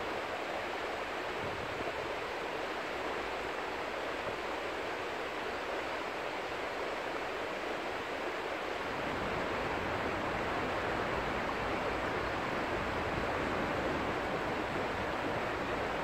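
River water flowing with a steady rushing sound, with a low rumble joining about halfway through.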